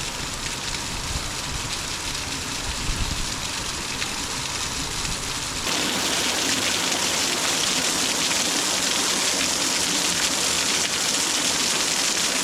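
Small waterfall's water rushing and trickling over rocks, a steady hiss that gets louder and brighter about six seconds in.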